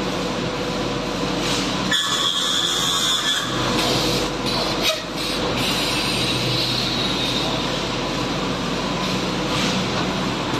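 MgO board production-line machinery running: a steady, dense industrial rumble with a high whine that comes and goes.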